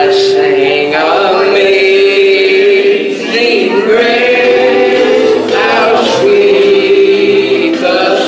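A mixed gospel vocal group of men and women singing a hymn in harmony through microphones, holding long notes.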